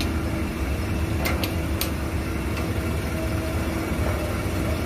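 Drilling rig machinery running steadily: a low drone with a constant hum over it. A few sharp clicks come between one and two seconds in.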